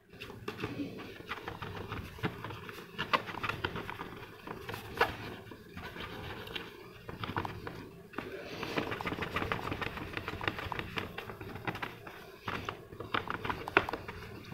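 Cotton cloth rubbed briskly back and forth over the clear-coated plastic shell of a model car, polishing it: a continuous scratchy rubbing made of quick strokes, with a few brief pauses.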